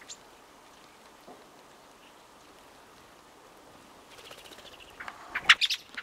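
Bird calls, most likely from the middle spotted woodpecker: about four seconds in, a quick run of sharp high notes, followed near the end by several much louder sharp notes.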